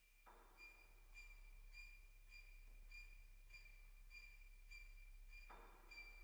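A nine-instrument chamber ensemble playing very softly. A high note is held steadily while a soft note repeats a little under twice a second, and fuller, lower notes come in near the start and again near the end.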